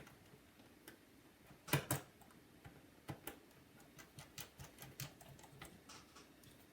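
Irregular small clicks and ticks of a precision screwdriver driving tiny screws into a MacBook's logic board, with two louder knocks close together about two seconds in.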